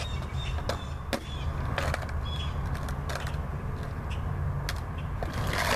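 Skateboard rolling on pavement: the wheels keep up a steady low rumble, broken by several sharp clacks. Near the end comes a louder scraping rush as the board goes into a nose slide attempt.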